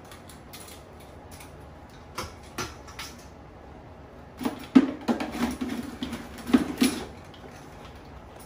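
Metal kitchen tongs clacking and scraping against crabs and the inside of a plastic cooler as crabs are picked out: a scatter of clicks and short rattles, loudest in two bursts about halfway through and near the end.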